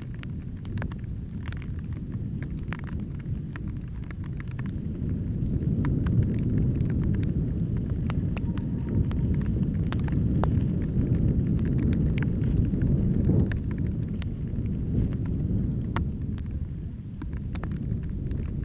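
Wind rumbling on the microphone of a moving mountain bike, with scattered clicks and rattles from the bike over rough trail. The rumble grows louder a few seconds in and eases near the end.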